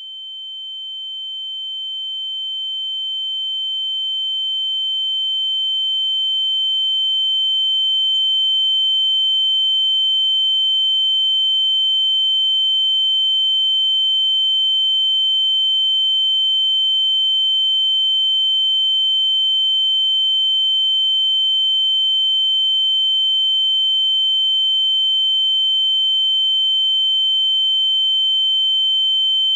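Ear-ringing (tinnitus) sound effect: a steady high-pitched tone, with a fainter lower tone beneath it, that swells in slowly over the first several seconds and then holds at a constant level.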